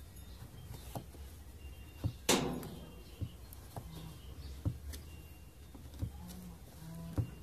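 Needle-nose pliers working the rim of a thin tin can: scattered metallic clicks and taps, with one louder scrape about two seconds in, as the inner can is forced down into the outer one a little at a time.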